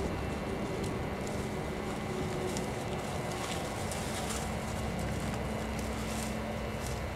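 Footsteps through tall dry weeds, stems rustling and snapping in scattered faint ticks, over a steady background rumble.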